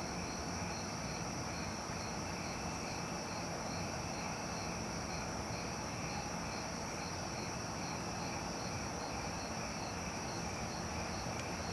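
Late-summer insect chorus: crickets trilling steadily, with an evenly pulsing chirp of about two to three beats a second, over a steady low background hum.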